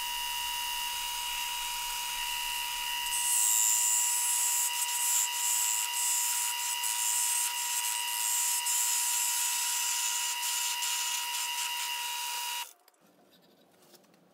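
Wood lathe running with a steady motor whine; from about three seconds in, a turning tool cuts the spinning mahogany pawn with a scraping hiss. All of it stops abruptly near the end.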